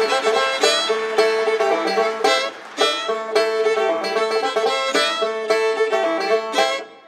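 Bluegrass instrumental music with banjo and fiddle.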